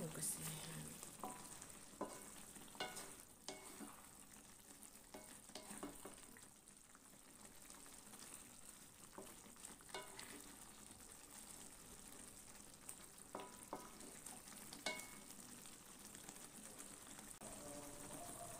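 Sauce simmering and sizzling faintly in an aluminium wok, with a spatula scraping and tapping against the pan now and then.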